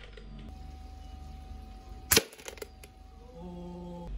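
A single shot from a BB gun about two seconds in: one sharp crack, followed by a few faint clicks.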